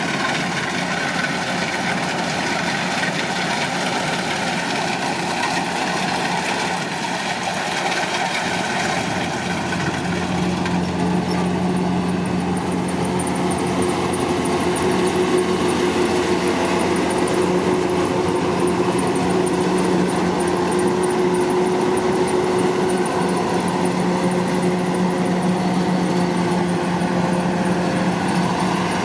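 Kubota DC-105 combine harvester's diesel engine running steadily under load, with a faint high whine joining about a third of the way in.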